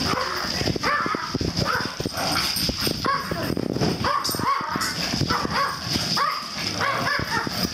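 Dogs barking in play, short high yaps coming one or two a second, over the thumps of paws on the carpet and sofa as they chase each other.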